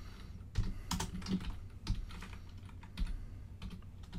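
Typing on a computer keyboard: a run of separate keystrokes coming unevenly, with short pauses between them.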